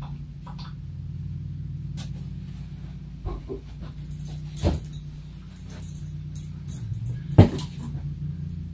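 A small pet dog vocalizing briefly, amid handling knocks as a heavy statue and its base are moved about, the sharpest knock near the end; a steady low hum runs underneath.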